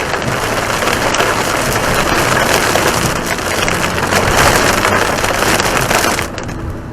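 Heavy rain pouring down in a loud, dense, steady hiss, with no hail in it. About six seconds in it drops off sharply to a much quieter rumble.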